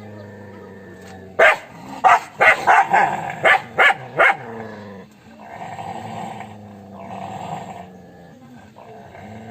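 A dog barking in a quick series of about seven sharp barks, followed by a few seconds of growling.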